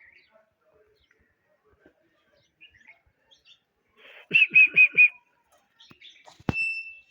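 A bird chirping: a quick run of four high chirps, then a sharp click followed by a short, steady high note near the end.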